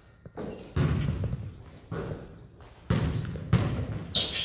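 Basketball bouncing on a hardwood gym floor as it is dribbled up the court: about five irregular, echoing bounces.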